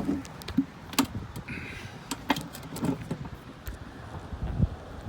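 A few knocks and clicks with low thumps, spaced about a second apart, as someone climbs into a boat and moves about on its deck.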